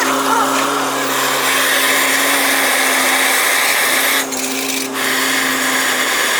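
A power tool running steadily with a constant hum and hiss, the hiss dropping away briefly about four seconds in.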